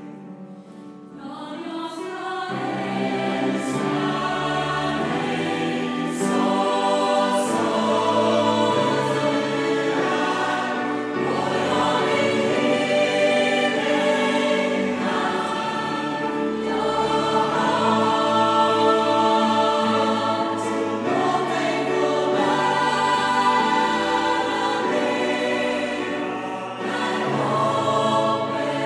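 Mixed SATB chamber choir singing in full harmony, accompanied by violin, keyboard and double bass. It comes in softly and swells to full strength about two seconds in.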